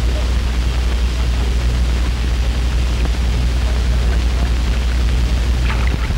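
Steady hiss with a strong low hum underneath: the worn soundtrack noise of an old film print, with no clear sound events standing out of it.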